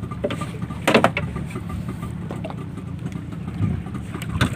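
A small engine idling steadily with a low hum, with a brief sharp noise about a second in, the loudest moment, and another near the end.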